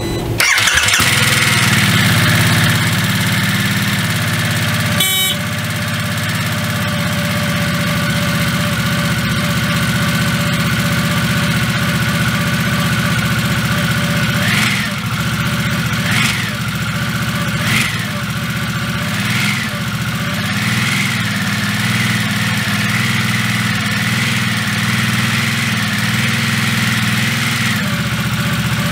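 Harley-Davidson Nightster's Revolution Max 975T V-twin cold-starting and catching at once, then idling steadily. It runs a little louder for the first couple of seconds before settling, and there is a sharp click about five seconds in.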